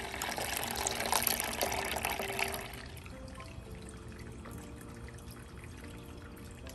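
Milk poured from a jug into a pan of roasted vermicelli: a steady splashing pour that tapers off about two and a half seconds in, leaving a few drips from the spout.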